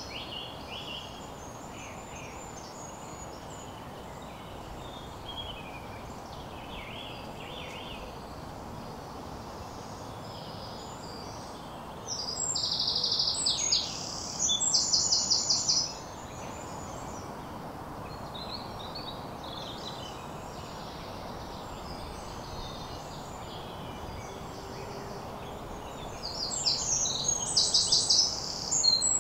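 Outdoor nature ambience recorded through a Sennheiser MKE 600 shotgun microphone plugged straight into a camera. Small birds call faintly over a steady background hiss. A songbird sings loud bursts of fast, high repeated notes: once about twelve seconds in, again a few seconds later, and near the end.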